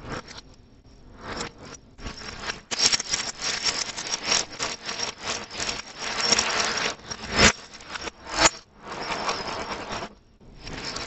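A few light clicks, then a cardboard box of chocolate wafer rolls torn open and handled by hand: a long stretch of dense crackling and rustling of packaging, with sharp snaps of the tearing card.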